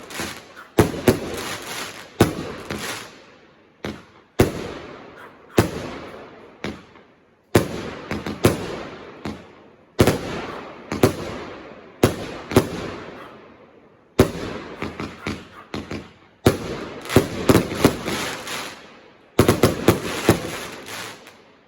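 Fireworks going off: sharp bangs every second or two, several in quick clusters, each followed by a fading crackle.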